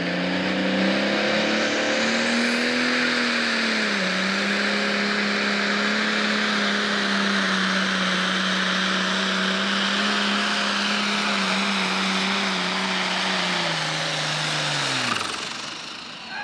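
Turbocharged diesel engine of an International Pro Stock pulling tractor running hard under load while it pulls the sled. Its pitch drops a little about four seconds in and then holds steady. About fourteen seconds in the pitch sags, then falls away quickly as the throttle comes off at the end of the pull.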